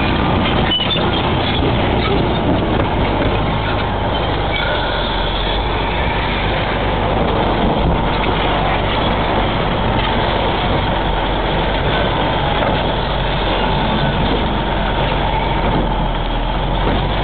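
A heavy engine running steadily at an even, unchanging speed.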